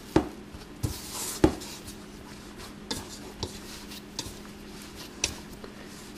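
Hands kneading soft dough in a stainless steel mixing bowl: soft rubbing and pressing of the dough with irregular knocks and clinks of the metal bowl, the two loudest just after the start and about a second and a half in.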